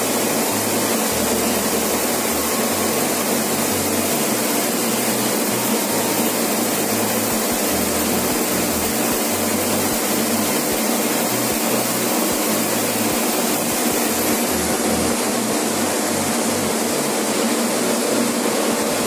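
Steady rush of wind and road noise over a bus's diesel engine running at highway speed, heard from inside the cab of an Ashok Leyland bus with a CRS engine, with an uneven low rumble underneath.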